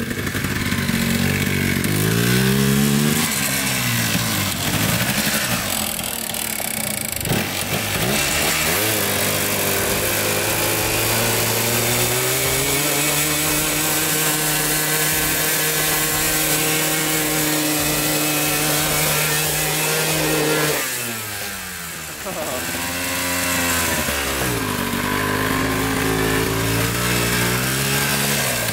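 Yamaha Blaster ATV's two-stroke single-cylinder engine revving hard through a burnout. The revs rise and fall over the first several seconds, then hold high and steady for a long stretch, drop about three-quarters of the way through and climb again.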